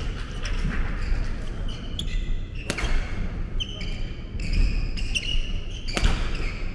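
Badminton doubles rally: court shoes squeaking on a wooden gym floor, with two sharp racket strikes on the shuttlecock, one about three seconds in and one near the end.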